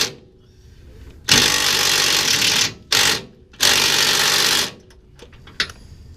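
Pneumatic hammering tool, such as an air hammer or impact gun, run in three short bursts, the first two longest, on a truck's front suspension parts. A couple of light metal clinks come near the end.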